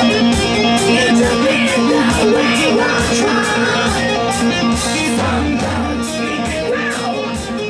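Hard rock music: a driving electric guitar riff over a steady drum beat, gradually getting quieter toward the end.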